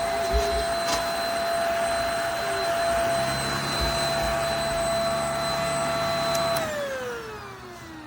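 JPHYLL Ultra-UVC-K16 mattress vacuum running with a steady high whine over its suction noise, then switched off about six and a half seconds in, its motor whine falling as it spins down.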